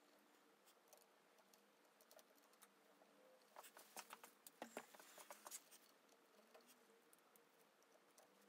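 Faint rustling and light clicking of small metal parts being handled, with a cluster of sharper clicks from about three and a half to five and a half seconds in.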